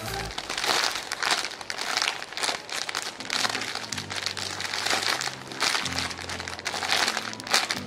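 Clear plastic bag crinkling in repeated bursts as the jumbo ice cream squishy inside it is squeezed and turned in the hands, over background music with a low bass line.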